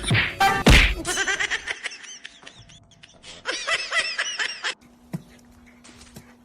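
A person laughing in short, high-pitched bursts, with a sudden loud hit just under a second in.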